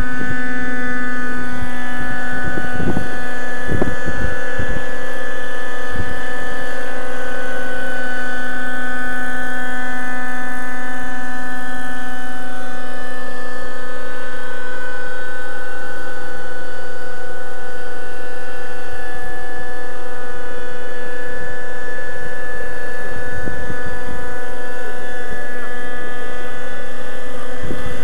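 Thunder Tiger Raptor 50 radio-controlled helicopter flying: its small nitro glow engine and rotors make a steady high-pitched whine that shifts slightly in pitch as it manoeuvres, with occasional low buffeting.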